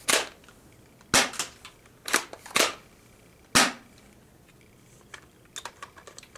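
Airsoft pump-action shotgun being shot and pumped: five sharp clacks in the first four seconds, then a run of lighter clicks near the end.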